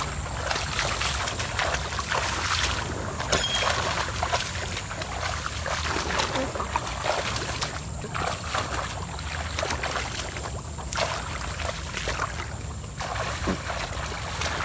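Footsteps wading through shallow marsh water and tall grass: dense crackling rustle of reeds and stems brushing against legs, mixed with sloshing underfoot, over a steady low rumble.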